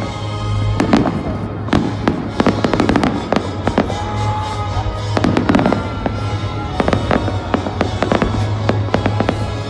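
Fireworks bursting and crackling in rapid succession, many sharp bangs through the whole stretch, with music playing underneath.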